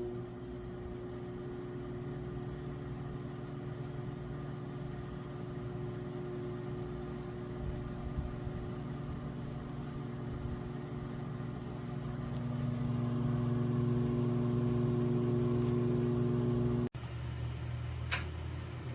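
Countertop microwave oven running with a steady electrical hum, which stops abruptly about two seconds before the end; a lower rumble and two sharp clicks follow.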